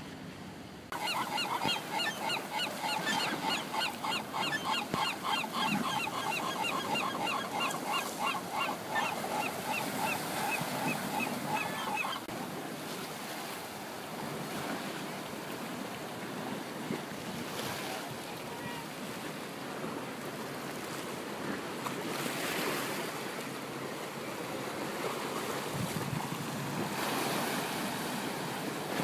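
Ocean surf washing in, a steady rushing that swells louder a couple of times in the second half. For about the first twelve seconds a bird calls over it in a fast run of repeated notes, several a second.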